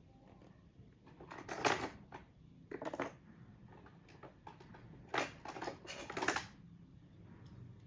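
Braided fishing line crackling and rustling as fingers pull it and work the knot tight against a small metal ring, in three short bursts: about a second in, around three seconds, and from about five to six and a half seconds.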